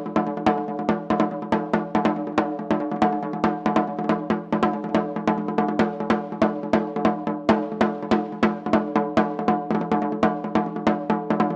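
Katsugi oke-daiko (shoulder-slung Japanese barrel taiko) drumming in a fast, steady rhythm of about six strokes a second, with ringing pitched drum tones.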